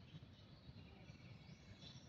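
Near silence: quiet outdoor ambience with faint high chirping in the background.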